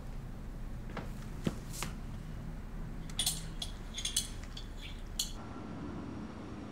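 Kitchen clatter of dishes and cutlery: a few separate knocks, then a quick run of light, bright clinks. About five seconds in it cuts off, leaving a quieter steady background.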